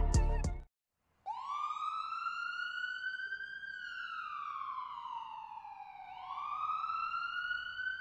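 Background music cuts off within the first second. After a brief silence a single siren-style wailing tone starts, rising slowly in pitch for about two seconds, falling for about two, then rising again.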